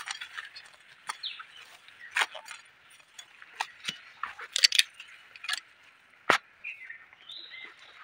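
Irregular sharp clicks and snaps of bamboo sticks and plants being handled and weeds pulled, loudest about halfway through and again past six seconds, over a steady high background hiss with a couple of short chirps.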